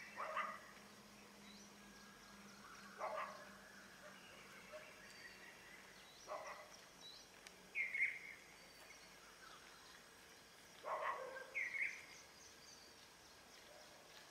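Birds calling: short, separate calls every few seconds, the loudest about eight and twelve seconds in, over faint high chirping.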